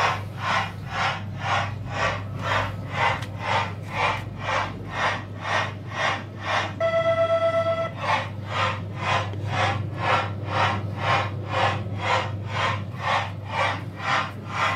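SAM Spilsby coin-operated train kiddie ride playing its steam-train sound effect through its speaker: steady chuff-chuff puffs at about two to three a second over a steady low hum. About seven seconds in the chuffing breaks for a train-whistle tone lasting about a second, then resumes.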